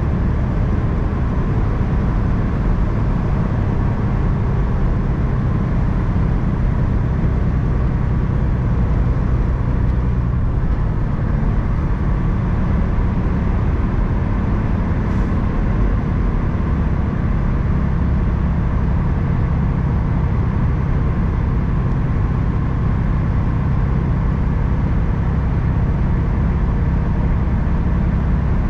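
Steady low drone of a truck's engine and tyres on the road, heard from inside the cab while cruising.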